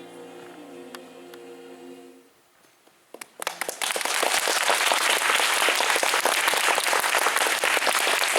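The held final chord of a choir piece dies away about two seconds in. After a brief pause, audience applause starts at about three seconds, swells and continues as steady clapping.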